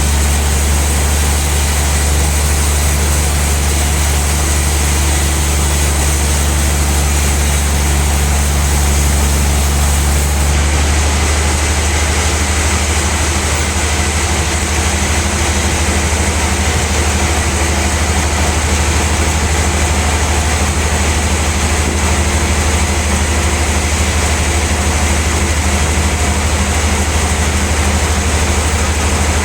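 Large sawmill bandsaw machinery running steadily with a deep hum. About ten seconds in, the highest hiss drops away and the sound settles into a slightly different steady drone.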